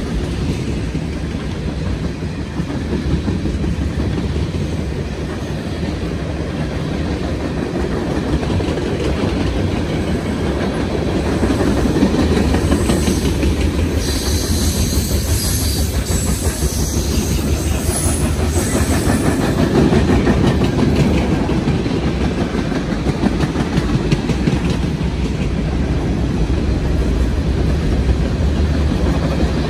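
Freight cars (tank cars and gondolas) rolling past on steel wheels: a steady rumble with fast clickety-clack as the wheels cross the rail joints. A high metallic squeal of the wheels joins in for a few seconds around the middle.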